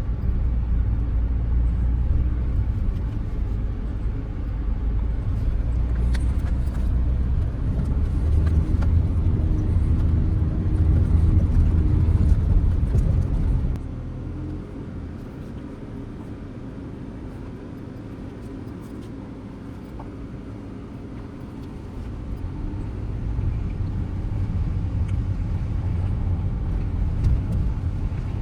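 Audi Q5 driving, a low engine and road rumble. About halfway through it drops off sharply to a quieter run, then builds back up again in the last third.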